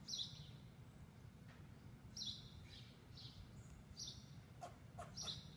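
Squirrel alarm calls: short, high, downward-sliding chirps repeated roughly once a second, the call a squirrel gives on spotting a predator, here a cat.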